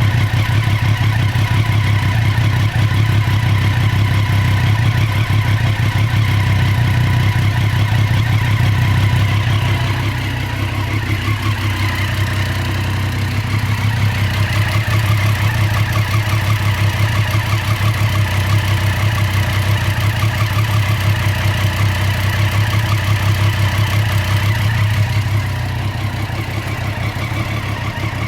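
Triumph Street Triple R's 675 cc inline three-cylinder engine idling steadily, dipping slightly in loudness about ten seconds in. The owner questions whether this idle is irregular or rough.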